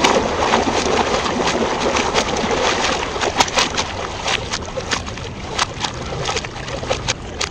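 Shallow river water splashed and churned by hand: a steady sloshing wash broken by many small, sharp splashes at irregular times.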